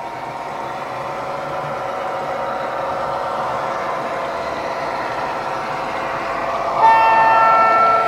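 DCC sound decoder in a model Irish Rail 141 class diesel locomotive, playing through small sugar-cube speakers. Its diesel engine sound runs steadily and grows slightly louder as the model approaches. About seven seconds in, a horn with several tones sounds and is held.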